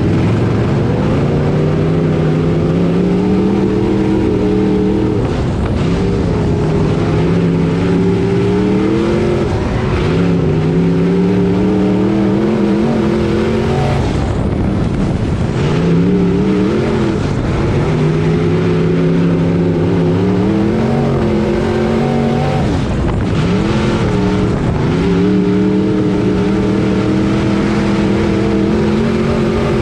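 Hotmod dirt-track race car's engine at racing speed, heard from on board the car. It revs up along each straight and drops back as the driver lifts for the turns, rising and falling again every few seconds around the oval.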